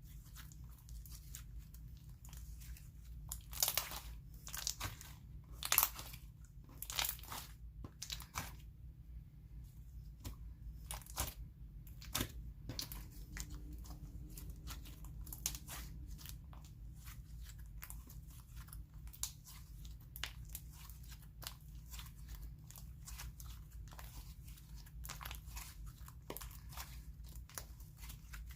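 Thick white-glue slime with small clay pieces being squished and worked by hand, giving irregular crunchy crackles and pops.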